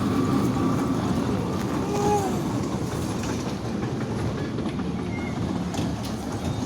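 Children's ride-on train running steadily after being switched on: an even rumble with a faint rattle.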